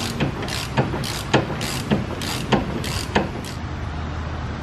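Hand ratchet wrench clicking in an even rhythm, a little under two strokes a second, as it runs down a brake caliper mounting bolt; the strokes stop about three and a half seconds in.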